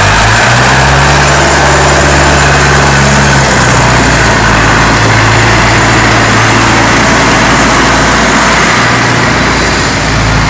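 Diesel farm tractor engine running as the tractor drives off, its note rising just after the start and then dropping to a lower, steady pitch about three and a half seconds in.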